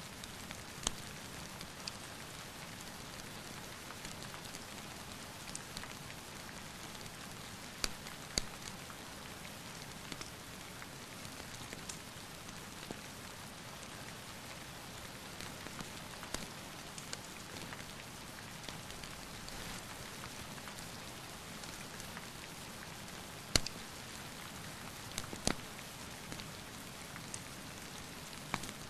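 Steady rain falling, an even hiss with scattered sharp clicks and pops; two louder pops come close together about eight seconds in and two more in the last few seconds.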